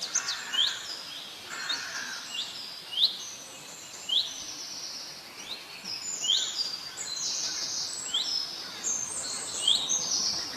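Several birds calling at once: many quick, high chirps that sweep up in pitch, mixed with buzzy, drawn-out high calls, over a steady background hiss.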